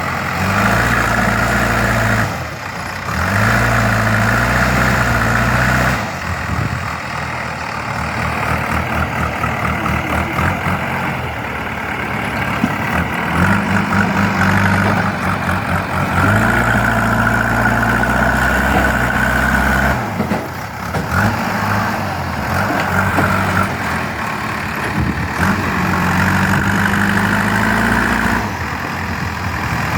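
JCB 3DX backhoe loader's Kirloskar diesel engine running under work, revving up in spells of a few seconds and easing back toward idle between them.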